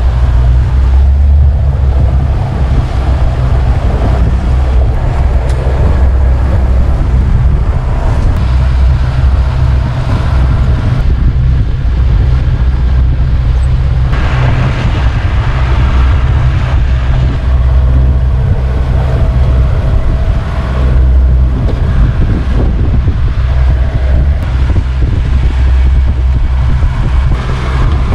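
Boat running at speed on its 200 hp outboard motor: a steady, loud low engine drone, with wind buffeting the microphone and water rushing past the hull.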